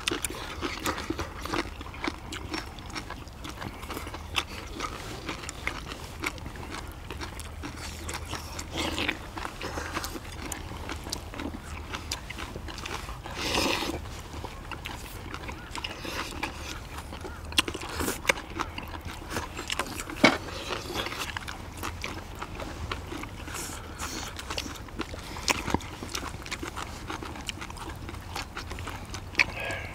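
Several people eating spicy braised monkfish with bean sprouts: chewing and slurping, with chopsticks clicking against plates and bowls.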